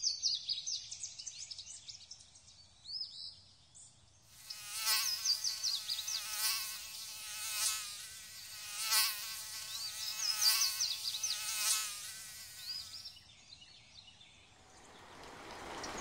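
Mosquito's high-pitched whine, swelling and fading about every second and a half as if flying past, from about four seconds in until about thirteen. Birds chirp during the first few seconds, and rain starts to patter near the end.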